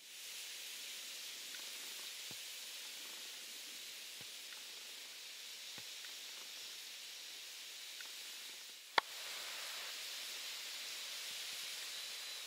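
Steady faint hiss of outdoor background noise, with a few faint ticks. A sharp click comes about nine seconds in, after which the hiss is a little louder.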